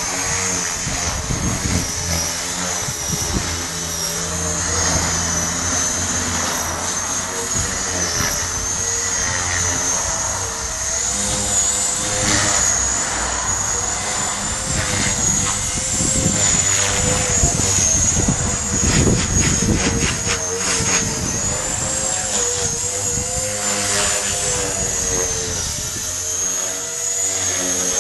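Blade 450X electric RC helicopter in flight: the high whine of its brushless motor and rotors, the pitch wavering up and down as it is flown.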